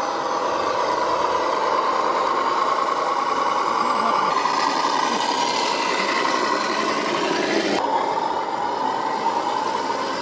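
Radio-controlled scale MAN army truck driving along the track: a steady mechanical drone with a whine. The sound shifts abruptly a little before the end.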